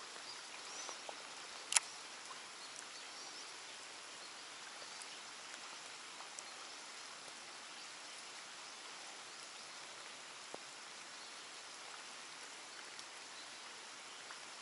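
Steady hiss of light rain falling on the water and around, with one sharp click a little under two seconds in and a few faint ticks.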